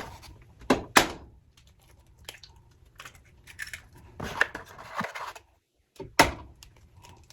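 Kitchen handling sounds: a handful of sharp knocks and clicks, with lighter clatter between them, as things are picked up and set down.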